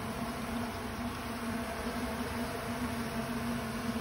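Honey bee colony buzzing in a steady, even hum around a hive box. The bees are calm and starting to fan, calling in the rest of the colony.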